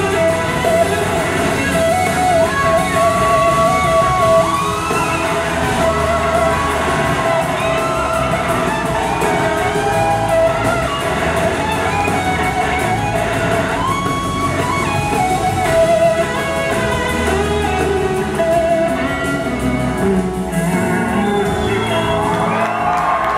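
Live band music led by a sustained, singing electric slide guitar lead on a Gibson SG, its notes gliding up and down between held pitches, over drums, cymbals and a second electric guitar.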